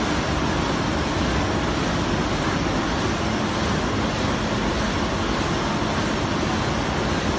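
GF-K film laminating machine running at production speed, about 150 metres per minute, laminating BOPP to CPP film: a steady, even running noise with a faint low hum held underneath.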